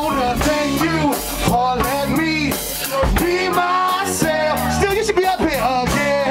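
Live band music with a drum kit and guitar behind a vocalist on a microphone, the voice riding over the band throughout.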